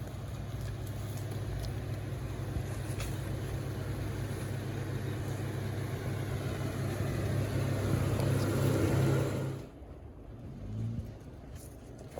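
Jeep Wrangler engine running under way on an off-road trail, a steady low drone that grows louder, then cuts off suddenly near the end, leaving a quieter stretch with a brief low hum.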